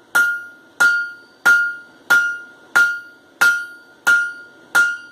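Hand hammer striking hot mild steel bar stock on an anvil in a steady rhythm, about eight blows, roughly one and a half per second, each with a clear ringing tone. This is drawing out the stock for a pair of railroad spike tongs.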